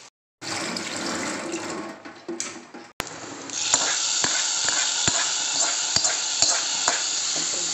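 Hot tempering of mustard seeds, dried red chillies and curry leaves sizzling as it is poured into a pot of curry, with a few clinks of a steel spoon against the pot. This is the loudest part, from about three and a half seconds on. Before it comes a shorter, duller rushing noise.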